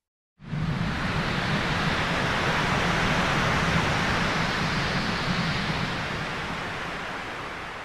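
Synthesized noise effect: a hiss with a low rumble underneath that comes in suddenly out of silence about half a second in, holds steady, then slowly fades over the last few seconds, like surf.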